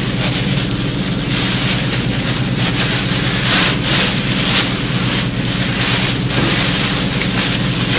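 A thin plastic carryout bag being rummaged through and crinkled close up: a loud, continuous rustle with irregular crackling surges, over a steady low hum.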